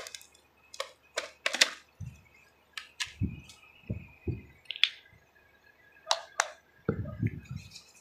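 Rubber examination gloves being peeled off the hands, with several sharp snaps at irregular moments and some dull knocks from handling. Near the end, hands rubbing together.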